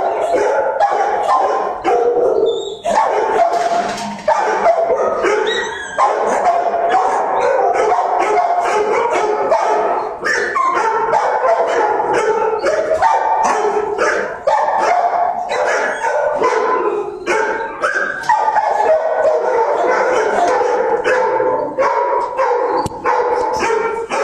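Many kennelled shelter dogs barking at once, a loud continuous din of overlapping barks with no break.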